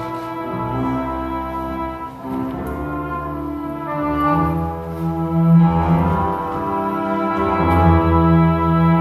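Orchestral stage-musical accompaniment with brass prominent, playing slow held chords that swell louder about halfway through.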